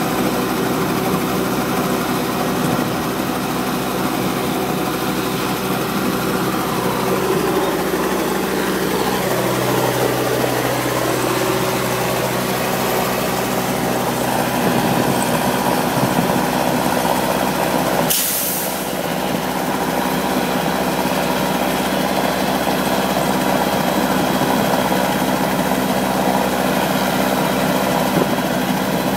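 Robinson R22 helicopter running on the ground, its piston engine and rotor giving a steady drone. A brief sharp click comes about two-thirds of the way through.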